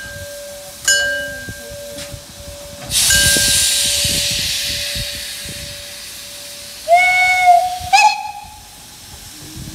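Steam locomotive standing with steam escaping: a sudden loud rush of steam hiss about three seconds in that slowly dies away, over a steady thin whistling tone. Near the end come two short whistle toots.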